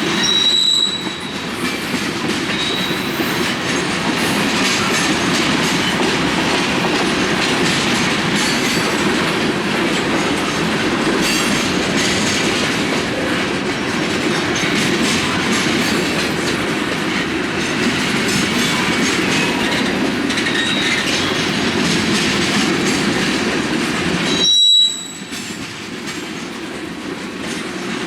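CPKC freight train's cars rolling past, a steady rumble and clatter of steel wheels on the rails. Brief high-pitched wheel squeals come near the start and again about 25 seconds in, after which the sound drops suddenly to a quieter level.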